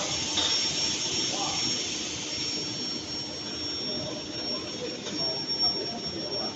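Steady industrial machinery noise: a continuous hiss with a thin high-pitched whine and a low hum, with faint voices underneath.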